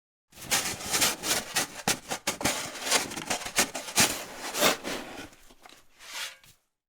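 Snow shovel scraping and scooping snow: a quick run of rasping scrapes and crunches with several louder strokes, which stops shortly before the end.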